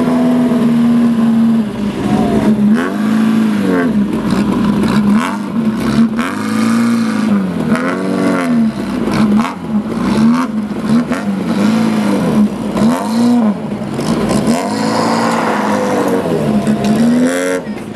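Sports car engine revved again and again, its pitch rising and falling in repeated swells as the car creeps along and then pulls away hard over loose dirt.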